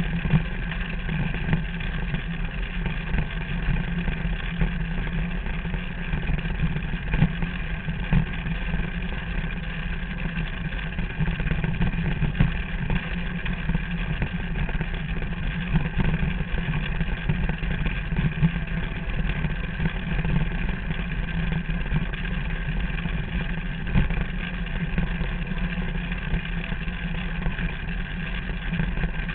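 Derny pacing motorbike's small engine running at a steady speed, its note holding even without revving up or down.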